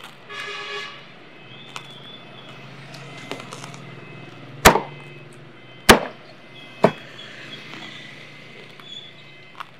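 Heavy cleaver chopping roast pork on a thick wooden chopping block: three hard chops about a second apart, starting a little over four seconds in, over a steady hum of street traffic.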